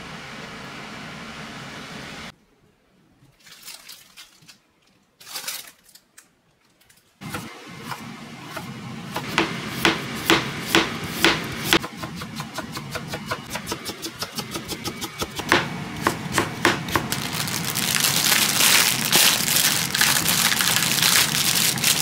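After a few seconds of near silence, a kitchen knife chops steadily on a cutting board at about three taps a second, getting faster, over a steady hum. Near the end a louder hissing noise rises.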